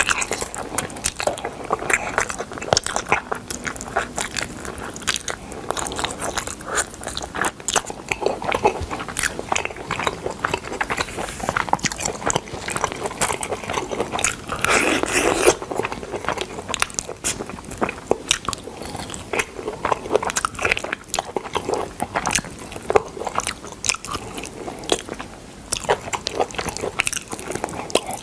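Close-miked biting and chewing of smoked chicken, full of irregular crisp crunching clicks, with a louder, fuller bite about halfway through.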